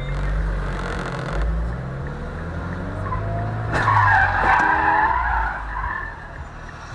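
A car's engine revving hard, then tyres squealing in a loud skid for about two seconds from just past the middle.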